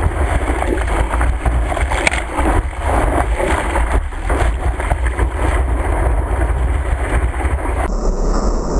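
Wind buffeting the microphone over a steady vehicle rumble, loud and fluttering, with a brief tick about two seconds in.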